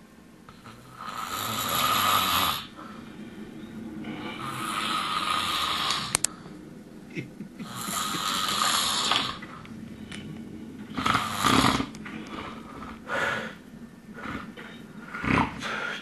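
A man snoring through his open mouth in deep sleep. There are three long snores a few seconds apart, then shorter, more uneven ones toward the end.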